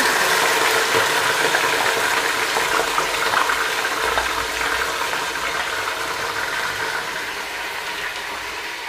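Yogurt-marinated chicken sizzling as it goes into hot ghee, loudest as it lands and slowly dying down.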